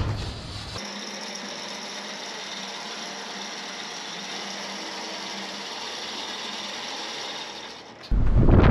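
Electric trailer winch running steadily, pulling a truck up onto a car trailer. Near the end it cuts suddenly to loud wind and road rumble from a moving vehicle.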